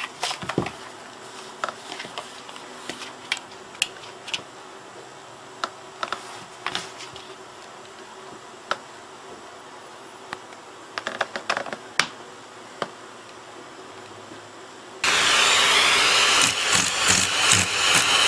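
Scattered light taps and knocks of a cat batting a plastic slipper about on a hard floor, over a faint steady background. About fifteen seconds in, this gives way abruptly to a vacuum cleaner running loudly, its noise pulsing unevenly while the cat grips the hose nozzle.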